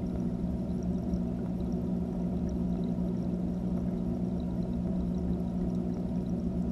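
Steady muffled water rush with a low electric hum from a running aquarium filter, heard underwater inside the fish tank, with faint scattered ticks.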